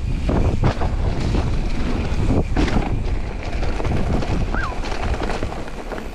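Wind buffeting the camera microphone of a mountain biker riding fast down a trail, over tyre roar and scattered knocks and rattles from rough ground. A brief high squeak comes about four and a half seconds in, and the noise eases slightly near the end.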